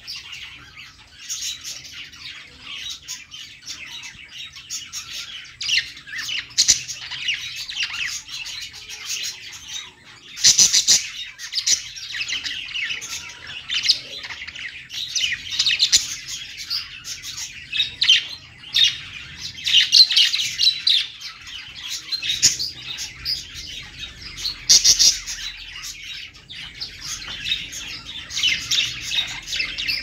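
A group of budgerigars chattering and warbling together: a continuous, busy high twitter with louder squawks breaking through now and then.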